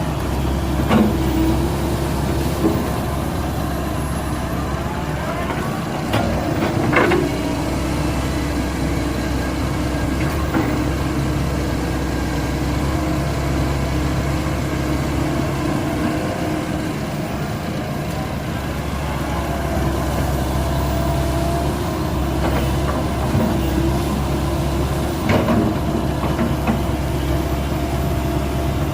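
Diesel engine of a Komatsu tracked excavator running steadily while it works. Brief whines of the hydraulics come around 6 to 7 seconds in, and a few sharp clanks of metal can be heard about a second in, around 7 seconds and near 25 seconds.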